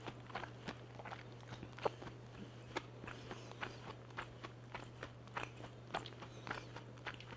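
Close-up chewing and biting of crispy-coated BBQ Peel Crunch fried chicken: rapid, irregular crunches and crackles, several a second. A steady low hum runs underneath.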